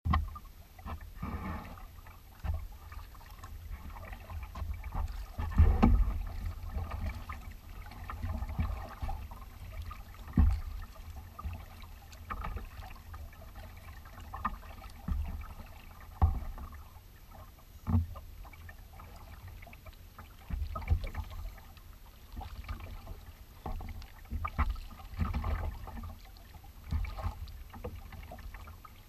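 Kayak paddling on calm water: paddle blades dipping and splashing and water lapping at the hull, with a knock every few seconds. A low wind rumble on the microphone runs underneath.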